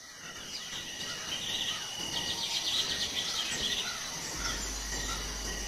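Forest ambience: a steady high-pitched insect drone with bird chirps and a rapid trill over it, fading in at the start.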